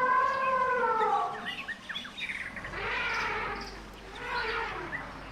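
An elephant call, a long pitched tone falling slightly over about a second, followed by birds chirping and two shorter, rougher calls.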